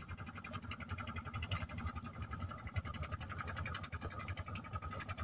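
Steady fast-pulsing high buzz of insects in the riverside vegetation, over a low irregular rumble of wind on the microphone.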